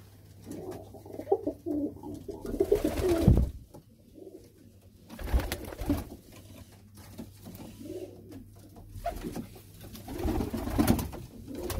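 Several Pakistani pigeons cooing together, low murmuring coos overlapping in clusters, with a couple of sharp thumps a few seconds in.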